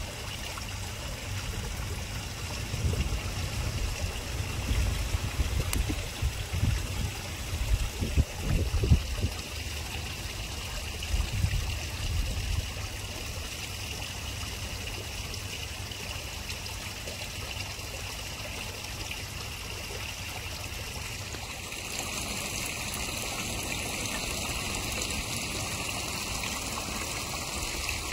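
Garden koi pond water trickling and splashing steadily, with water pouring into the pond. Irregular low rumbles come and go in the first half, and the sound shifts slightly after about twenty seconds.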